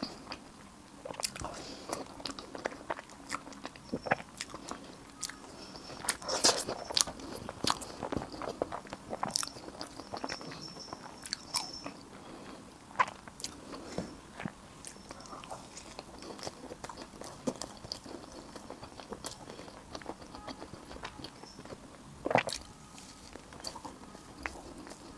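Close-miked eating: a person biting and chewing food, with many sharp crisp crackles and clicks. The crunching is busiest about a quarter of the way in, and there is one loud snap near the end.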